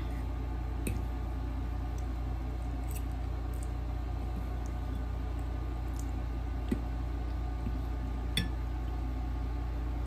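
A fork clicking and clinking a few times against a plate of noodles, with soft eating sounds as a bite is taken, over a steady low hum.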